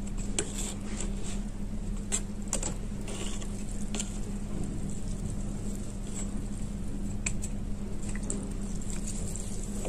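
A knife blade working wet multani mitti and gray clay lumps in water in a plastic tub: soft squishing with scattered sharp clicks and taps as the blade meets clay and container. A steady low hum runs underneath.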